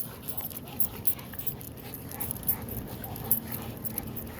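A large dog whimpering softly, with scattered small clicks and rustles around it.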